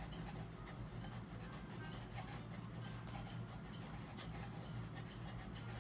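Pencil and coloured pencil scratching on paper in many short strokes, over a steady low hum.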